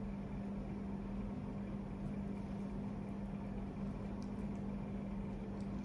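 A steady low electrical or mechanical hum with a faint hiss underneath, like a running appliance or fan. A couple of faint ticks sound about four seconds in.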